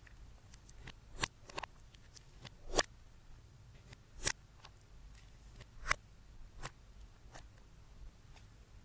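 Slime being worked by hand, giving sharp, irregular clicking pops about once a second.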